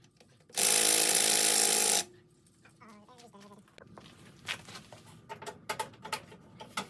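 A power tool, an impact wrench on the truck's lug nuts, runs in one steady burst of about a second and a half, then stops; light scattered clicks and knocks follow.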